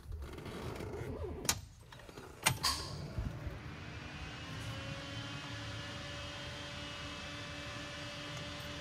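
Two sharp clicks from the 1976 Ford Bronco's ignition switch as the key is turned on. A small electric motor then spins up with a short rising whine and settles into a steady hum, with the ignition on ahead of a cold start.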